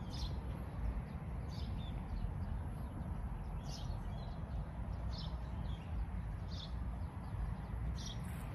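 Outdoor ambience: a low, uneven rumble of wind on the microphone, with a bird repeating a short high chirp every second or so.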